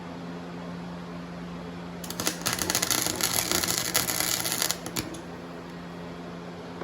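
Harbor Freight Flux 125 flux-core welder arc crackling and sputtering for about three seconds, starting about two seconds in, then a click as it stops, over a steady low hum. The welder suspects paint on the steel is spoiling the connection.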